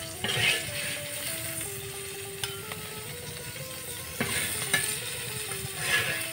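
Sizzling from hot fried green beans and garlic as they are spooned into a glass bowl, with a few light clicks against the glass. A slow background melody plays under it.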